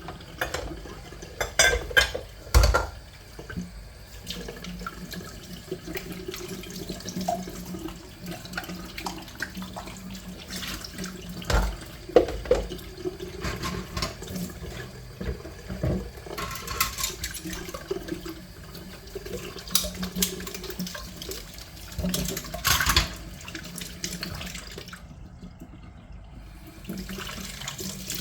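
Water running from a tap into a sink during hand-washing, with repeated clinks and knocks of items being handled in it. The running water stops for about two seconds near the end.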